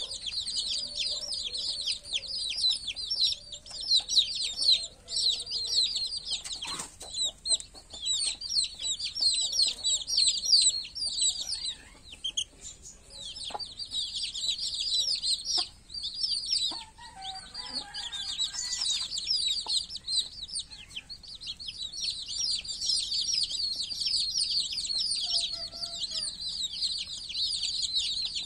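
A brood of young chicks peeping constantly while they peck at feed: many overlapping short, high, falling peeps. The chorus thins out for a few seconds past the middle, with a few sharp clicks scattered through.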